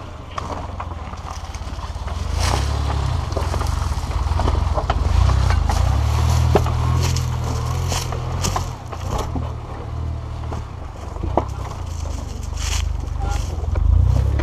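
Suzuki Jimny JB23's small three-cylinder turbo engine running with a low rumble as the 4x4 crawls slowly over rocks, its tyres crunching and cracking over stones and gravel in sharp, scattered clicks.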